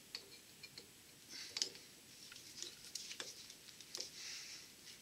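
Faint, scattered small metallic clicks and short scrapes of a screwdriver working the set screw that holds the Bendix drive onto a Delco-Remy starter shaft.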